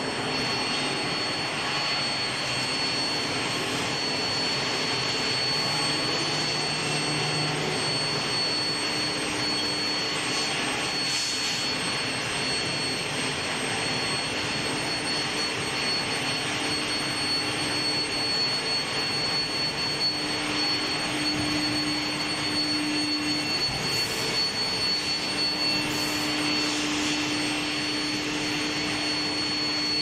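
Steel-bar induction heating and quenching line running: a steady, unbroken industrial din with a constant high whine over it.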